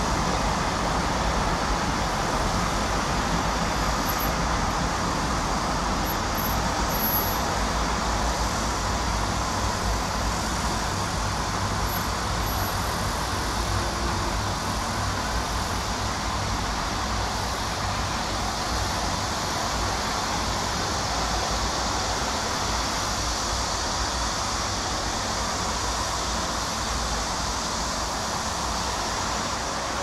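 Steady traffic noise from a busy multi-lane expressway: a continuous wash of car tyres and engines.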